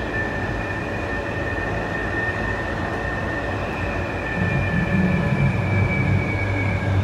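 New Taipei Metro Circular Line train running on elevated track, heard from inside the car. There is steady running noise with a high, slightly falling two-note whine, and a louder low rumble builds about halfway through.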